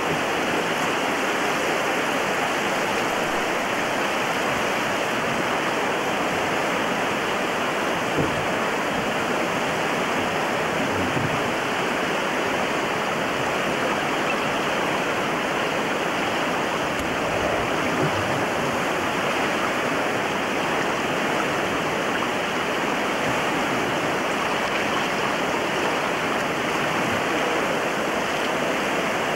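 Whitewater river rapids rushing steadily, a continuous, unbroken wash of fast water over rocks.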